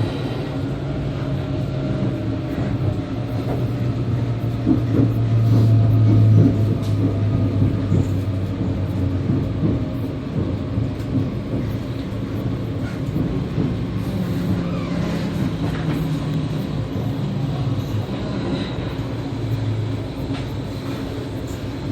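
E2 series Shinkansen with Mitsubishi IGBT traction inverters running, heard from the vestibule deck of a car: a steady low hum and rumble that swells a little around six seconds in.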